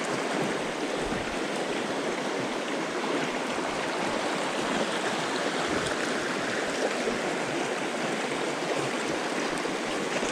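Small rocky creek running over a riffle: a steady, even rush of water.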